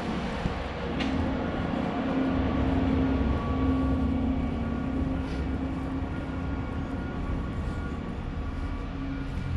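A vehicle's engine running: a steady hum with a low rumble and a held low tone, growing a little louder a couple of seconds in.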